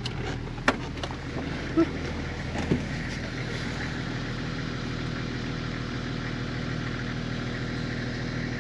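A 4WD's engine running steadily, with a few sharp knocks in the first three seconds.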